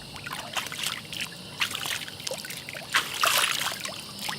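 Water splashing and trickling irregularly, with a louder splash about three seconds in.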